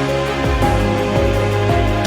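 Instrumental music with sustained notes over a steady bass line and a regular beat of drum hits, about two a second.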